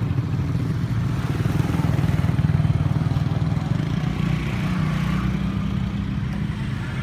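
A heavy engine running loudly and steadily, its pitch rising a little about four to five seconds in.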